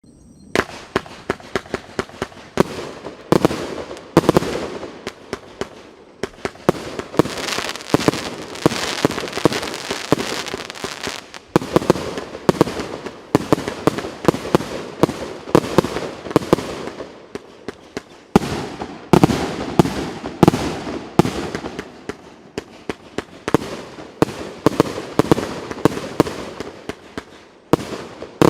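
Pyroff 'Skazka' multi-shot firework battery firing, with shots going off in quick succession. It starts about half a second in and keeps going with only brief lulls.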